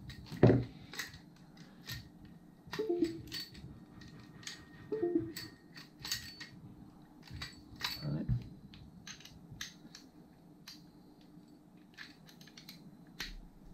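Clicks, taps and clatter of small metal parts handled by hand: a child bike seat's mounting clamp, bar and bolts being turned over and fitted together, with a heavier knock about half a second in.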